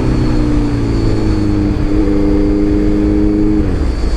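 Honda CBR 650F inline-four through an Arrow full-system exhaust, running on the road as the bike slows: its note falls steadily, jumps briefly about two seconds in, and drops more sharply near the end.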